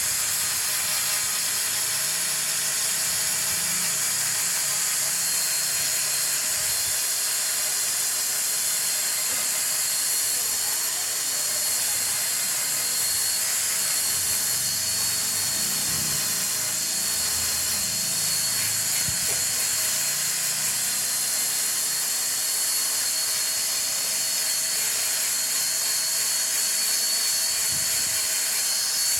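Wood lathe running, with a steady high hiss and a thin high whine over it.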